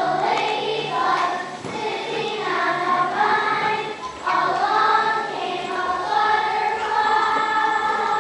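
A group of young children singing a song together, their voices moving from note to note and then holding long notes near the end.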